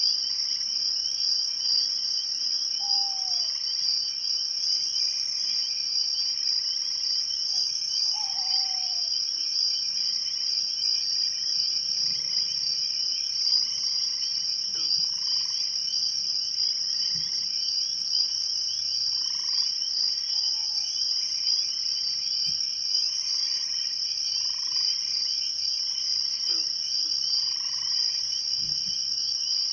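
Night chorus of crickets trilling steadily in a high, unbroken buzz, with a second, lower insect trill beneath it. A frog gives a short falling call four times, and faint high ticks recur about every four seconds.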